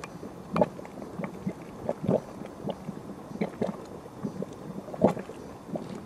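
Geothermal vent bubbling, with irregular low plops and pops from the hole, about two a second.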